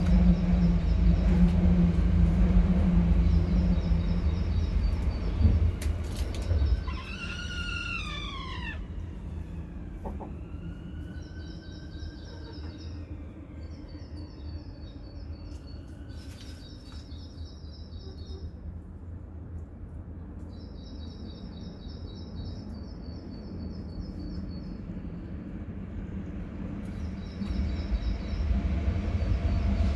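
A rooster crows once about seven seconds in, a call with several overtones that falls in pitch at the end, followed by fainter arching calls. Short runs of high chirping from small birds repeat throughout. A low rumble fills the first several seconds and comes back near the end.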